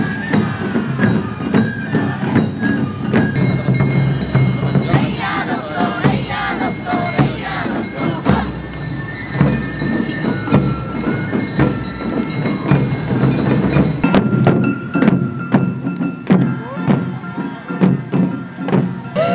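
Suzume odori festival music: taiko drums and metallic bell or gong strikes keeping a dense beat, with a high melody line over it.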